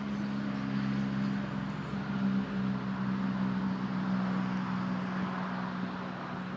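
A steady low engine hum that eases off near the end.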